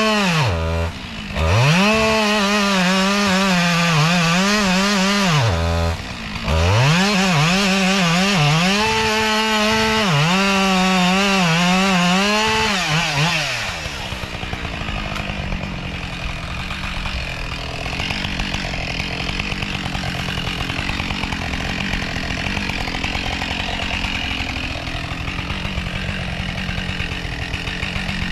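Husqvarna 572XP two-stroke chainsaw at high revs cutting into a tree during a felling cut, with the throttle let off briefly twice. About halfway through, the high revving stops and a lower, rougher running sound carries on.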